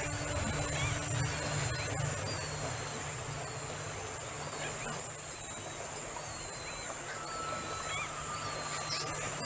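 Natural ambience: a steady high-pitched insect drone, with a short, thin bird call repeating about once a second over a low background rumble.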